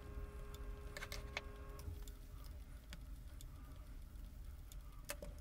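A metal spoon clicking and scraping on the plates of an electric waffle maker as thick cottage-cheese batter is spooned on: a few light clicks about a second in and again near the end. A faint steady hum runs underneath and stops about two seconds in.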